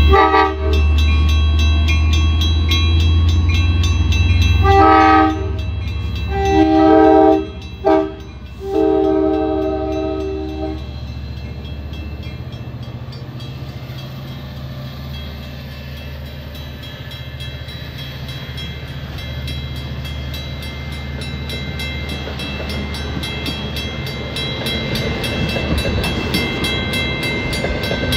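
A train passing with a heavy low rumble while its multi-tone horn sounds four blasts, long, long, short and long: the standard warning for a grade crossing. The rumble of the train rolling by carries on after the horn stops and grows louder near the end.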